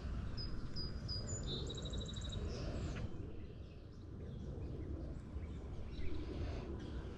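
A small songbird singing: three short high notes, then a quick buzzy trill, in the first few seconds, over a steady low rumble of outdoor background noise.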